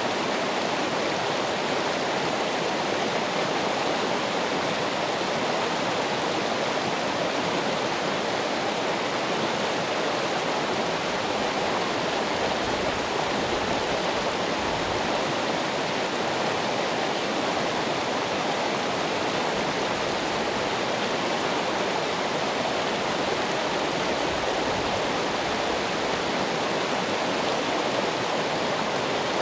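Running water flowing and splashing steadily, a continuous rushing hiss with no breaks.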